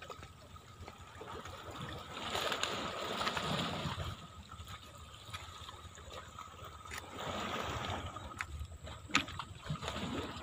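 Small sea waves washing and gurgling against the rocks, swelling twice, with a couple of light knocks near the end.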